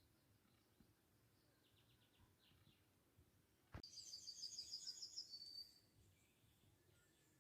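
Near silence broken by a small bird singing: a few faint high chirps, then a sharp click, followed by a quick trill of rapidly repeated high notes lasting about two seconds.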